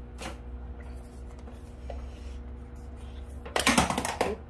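A cardboard product box being handled close to the microphone: a single click near the start, then a loud burst of rustling and knocking about three and a half seconds in, over a faint steady hum.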